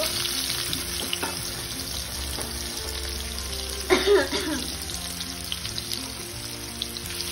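Sliced onions frying in hot oil in an iron kadai, a steady sizzle, with background music playing over it. A brief, louder noise comes about four seconds in.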